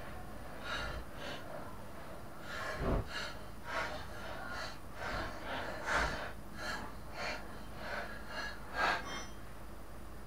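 Caked grass clippings being scraped out of the underside of a lawn mower deck with a hand tool: a string of uneven scraping strokes, about two a second, the loudest at about three, six and nine seconds in.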